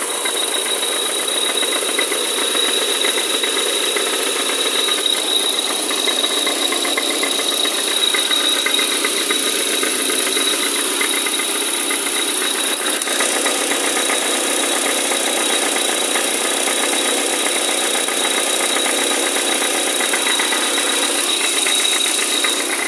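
Engine idling with a fast, even knocking rattle from a flywheel with a loose bolt, over a steady high-pitched whine.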